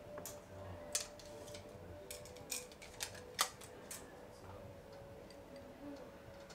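Ear pick scraping inside an ear canal: irregular sharp clicks and crackles, thickest between about two and four seconds in, over a faint steady hum.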